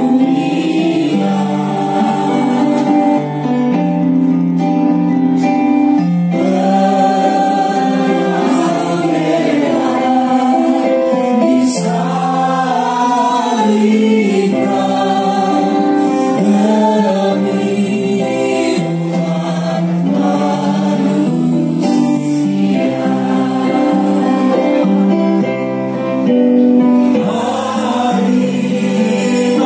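A choir singing a gospel-style Christian song, with held notes that change every second or two.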